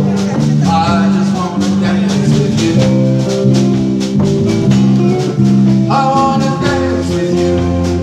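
A live country band playing, with electric and acoustic guitars, bass and drums. A man sings lead at times.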